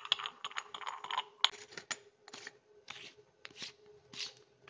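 Brass sev/chakli press being closed: metal clicks and scraping as the lid goes onto the cylinder, then a run of short rubbing strokes about every half second as the brass threads are screwed tight.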